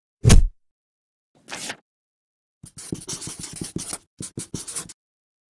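A heavy thump, a short soft swish, then a felt-tip marker scratching across paper in quick strokes for about two seconds.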